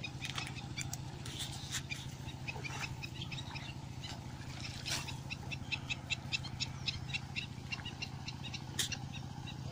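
A wild animal calling in short high chirps, scattered at first and then a fast, even series of about five a second from about halfway through, over a steady low hum.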